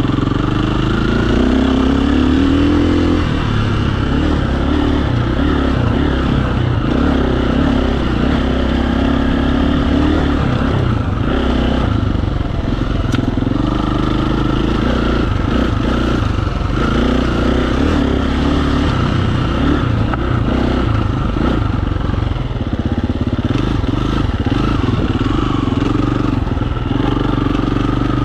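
KTM dual-sport dirt bike engine being ridden on a trail, its pitch repeatedly rising and falling as the throttle opens and closes.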